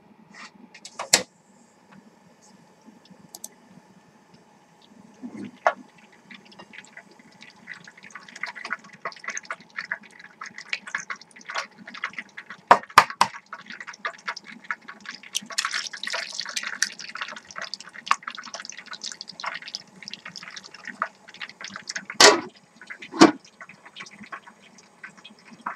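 Oil in a frying pan on a portable gas stove heating up and starting to sizzle and crackle, with small pops growing denser from about eight seconds in. A few sharp knocks of handling, two near the end as a cover is set over the pan.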